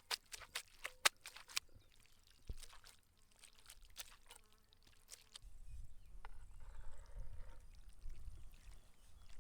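A quick run of sharp clicks and crunches in the first second and a half, then low wind rumble on the microphone from about halfway.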